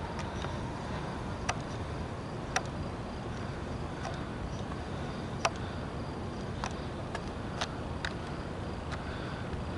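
Crickets trilling faintly and steadily over a low background rumble, with a few scattered sharp clicks.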